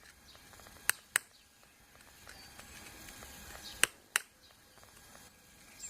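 Sharp taps of a metal awl point striking a geode's hard rock shell while scoring it, heard as two quick pairs of clicks about three seconds apart.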